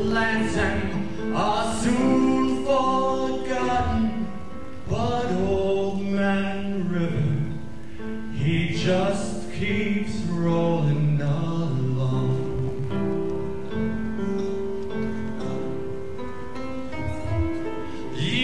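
A male singer performing a song into a hand-held microphone over backing music, with some long held notes.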